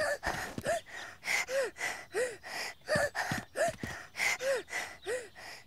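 A cartoon piglet girl's voice panting out of breath after running: about eight quick, evenly spaced breaths, each with a short voiced "hah".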